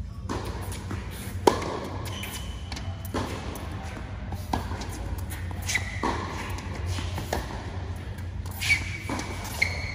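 Tennis rally in an indoor hall: sharp racket strikes and ball bounces about every second and a half, echoing, the loudest about a second and a half in. Rubber-soled shoes squeak briefly on the court surface several times, over a steady low hum.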